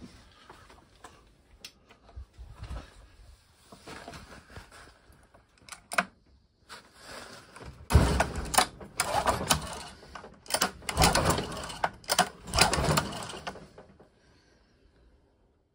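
Honda 8 hp four-stroke outboard being turned over by its pull starter, about four loud pulls in quick succession in the second half, with sharp clicks among them; the engine does not start. Each pull is a spark check on freshly fitted plugs, and the ignition now gives spark. Quieter handling noises and scattered clicks come before.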